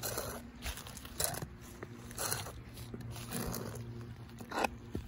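Footsteps of platform stiletto heels on a concrete sidewalk, about one step a second, each a short sharp strike, over a steady low hum.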